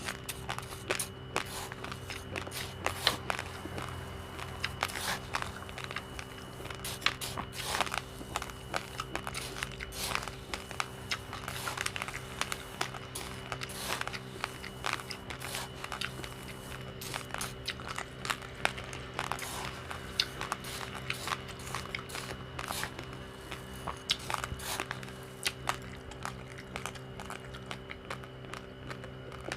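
A person crunching uncooked rice grains between the teeth: rapid, irregular sharp cracks, several a second, over a steady low hum.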